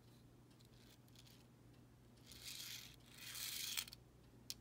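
Faint hiss of a tiny brass N-scale Shay truck's metal wheels rolling down a tilted length of model track, in two stretches from about two seconds in, the second louder and ending in a small click. The truck rolls a bit rough and still needs more tuning.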